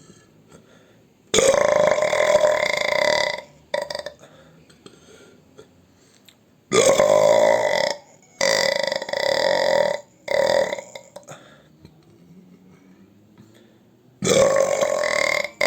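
A person belching: a string of long, loud, deep burps, each lasting one to two seconds, with short pauses between them and a couple of brief burps in among the long ones.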